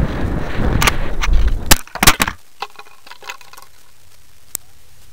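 Wind rushing over the onboard camera of a descending model rocket, then a cluster of hard knocks and cracks about two seconds in as the rocket hits gravel ground on landing, followed by a few light clicks.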